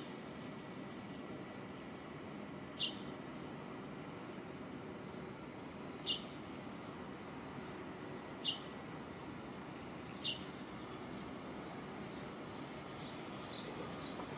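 A bird calling: short, sharp chirps that sweep downward, the loudest about every two seconds with fainter ones in between, over a steady low background hum.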